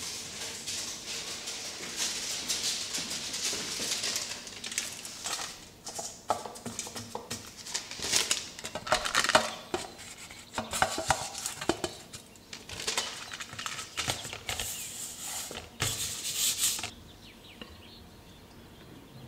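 Kitchen utensils and dishes clinking and scraping for a long stretch, with many sharp knocks. They stop about two seconds before the end, leaving only faint background.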